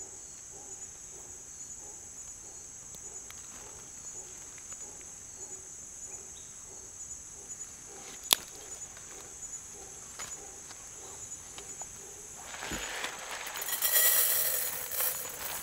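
Rainforest insects chirring steadily in a high, even band. A single sharp click comes about eight seconds in, and near the end a loud swell of hissing, crackling noise rises over them.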